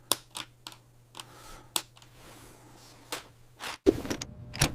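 Scattered light plastic clicks and taps of LEGO Technic pieces being handled and fitted, over a faint steady hum, with a louder clatter of clicks near the end.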